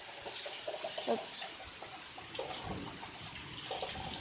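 Heavy rain pouring down steadily, a continuous hiss of falling water.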